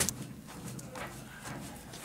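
Light clicks and taps from handling the telescope's steel mirror cell and mount: one sharp click right at the start, then faint scattered taps.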